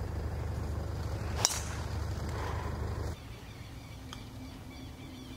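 A golf club strikes a ball off the tee with one sharp crack about one and a half seconds in, over a low rumble. After a cut the sound is quieter, with one faint distant click of another shot about four seconds in.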